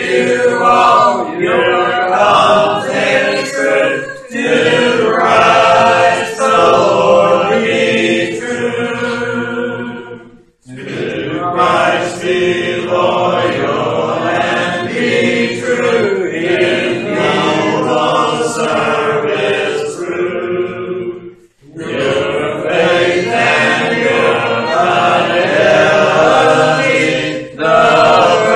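A church congregation singing a hymn together, unaccompanied, in long phrases with short breaths between lines about four, ten, twenty-one and twenty-seven seconds in.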